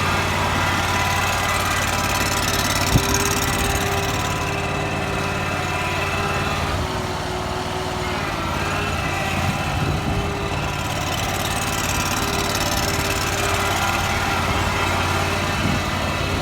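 Hysoon HY380 mini digger's small petrol engine running steadily while the machine is driven, with a steady whine over it that drops out briefly a few times. There is a single sharp click about three seconds in.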